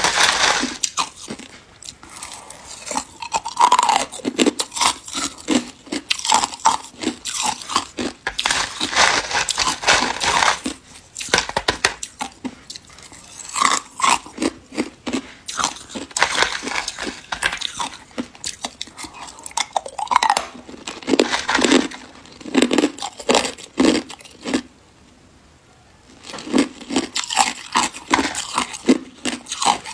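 Hard crushed ice being bitten and chewed, crunching in clusters of sharp strokes. There is a short pause about 25 seconds in, then the crunching starts again.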